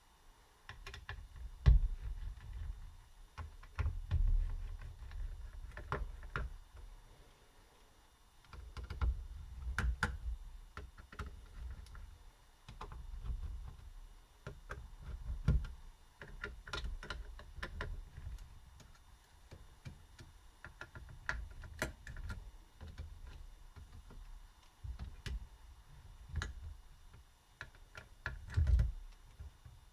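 Scattered light clicks, taps and low knocks of a screwdriver and small metal and plastic parts being handled on a laptop motherboard, as the CPU heatsink-and-fan's screws are undone and the fan's power connector is unplugged.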